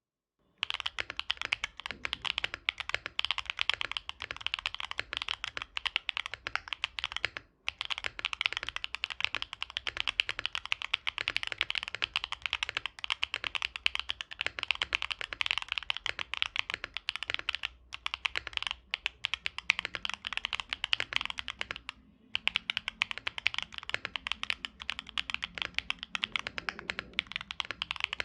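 Fast continuous typing on a Mode Envoy mechanical keyboard with stock MMD Princess tactile switches, aluminium plate and GMK keycaps: a dense run of bright, clacky keystrokes. Typing starts about half a second in and pauses briefly twice.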